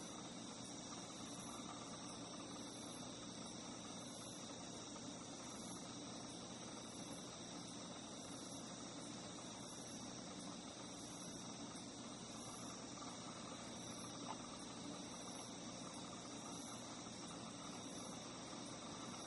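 Faint, steady chorus of singing insects: several high trills at once, the highest pulsing slowly and regularly.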